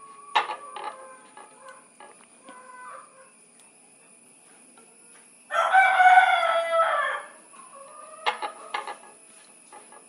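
A rooster crows once, loud, about five and a half seconds in, the call lasting nearly two seconds. A few short knocks come near the start and again near the end.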